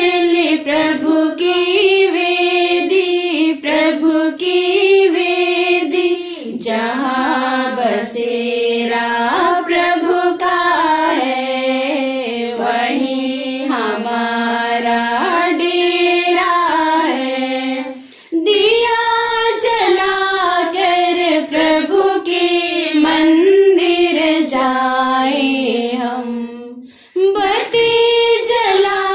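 A female voice singing a hymn in long, slow melodic phrases, with short breaks for breath about two-thirds of the way through and near the end.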